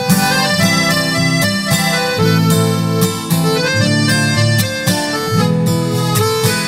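Instrumental sertanejo music: a harmonica plays a held, crying melody over guitar accompaniment.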